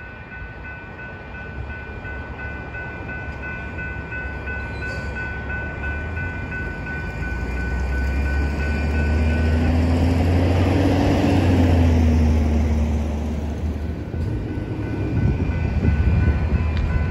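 Train locomotive on the main line: a deep engine rumble builds to its loudest about ten to twelve seconds in, with a whine that rises and then falls in pitch as it goes by. Steady high tones sound over the first half and fade out about nine seconds in.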